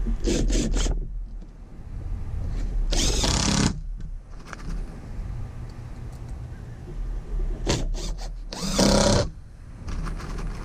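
Cordless drill driving screws into plywood. There are two rounds, each a few short trigger bursts followed by a longer run of about a second: the first near the start and around three seconds in, the second around eight to nine seconds in.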